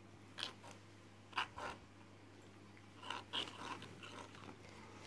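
Fingers mixing a thick gram-flour and rice-flour batter in a small bowl: a few soft, irregular squishing and scraping sounds, more frequent near the end, over a faint steady low hum.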